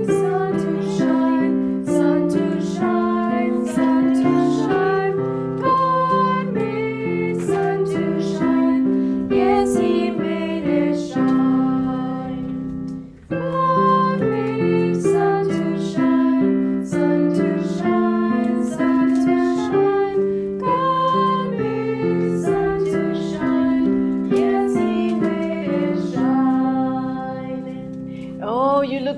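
A woman singing a children's Sabbath school song to keyboard accompaniment. The music breaks off briefly about halfway through and then starts again.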